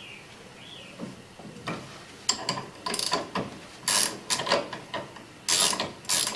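Ratchet spanner clicking in short bursts of strokes from about two seconds in, winding off a nut that is stiff with muck on its thread.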